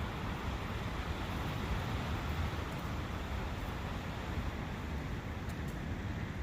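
A brook running, a steady even rushing of water.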